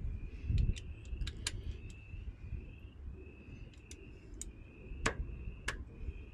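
Scattered sharp clicks and taps of hand tools being handled, over low wind rumble on the microphone, with a short high trill repeating faintly throughout.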